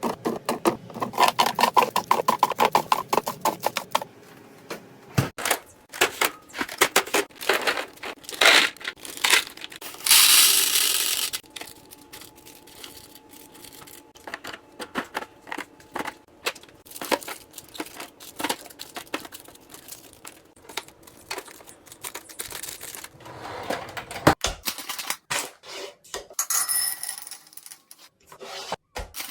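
Packaging and containers being handled and set down during restocking: rapid clicks, taps and rustles. There is a longer rustling burst about ten seconds in, and a brief ringing clink near the end.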